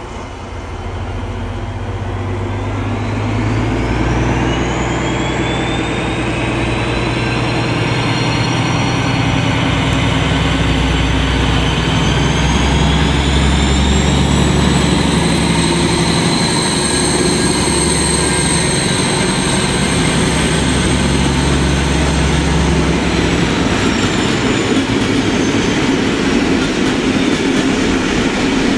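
DB Class 218 diesel-hydraulic locomotive pulling away with a passenger train: the diesel engine's deep running and a high turbocharger whine rise in pitch twice as it accelerates. About three-quarters of the way through the engine note and whine fall away, leaving the rumble of the coaches rolling over the track.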